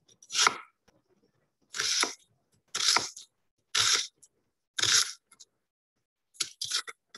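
Sampled crunching, cutting sounds laid out as a sound-art composition: five short crisp crunches about one a second, then three in quick succession near the end.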